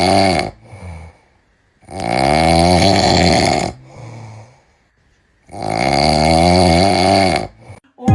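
A man snoring loudly: long rasping snores of about two seconds each, coming roughly every three and a half seconds, with a softer breath between them.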